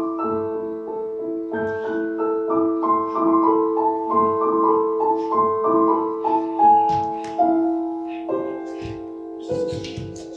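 Electronic keyboard with a piano voice playing a gentle melody, a few notes a second, over two low notes held underneath.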